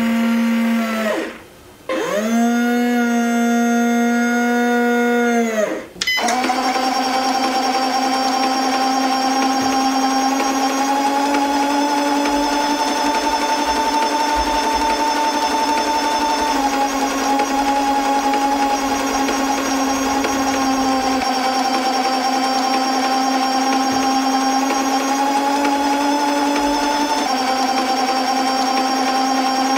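Electric motor and gears of a toy RC 6x6 army truck whining steadily at one pitch. About a second and a half in it winds down, stops briefly and spins back up. It breaks off for an instant at about six seconds, then runs on with small steps in pitch.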